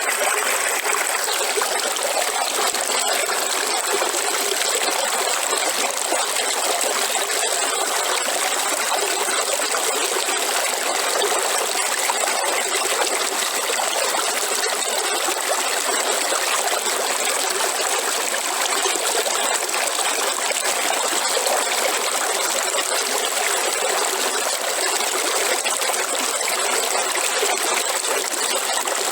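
River water flowing and trickling, a steady unbroken rush with little deep rumble.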